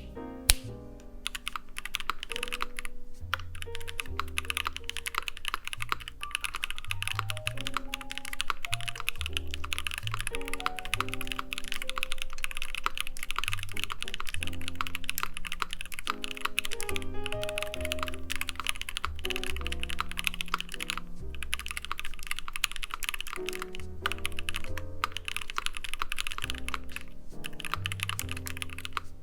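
Continuous fast typing on an Iron180 mechanical keyboard with a brass plate, lubed JWK Epsilon switches and GMK Bushido keycaps: a dense, unbroken run of keystroke clacks. Background music with a bass line plays underneath.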